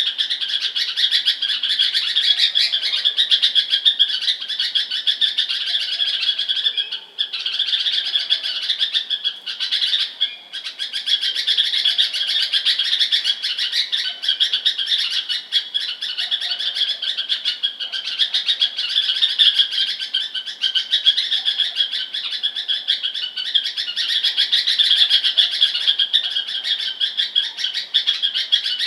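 Bulbul chirping in a dense, continuous stream of quick high notes, with brief lulls about seven and ten seconds in.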